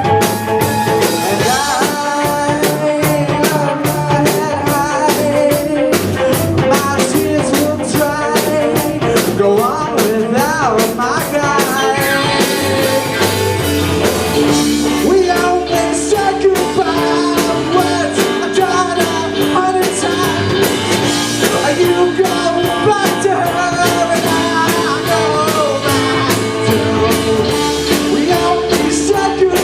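A live rock band playing a song: a drum kit keeping a fast, steady beat under electric guitar and bass, with some singing.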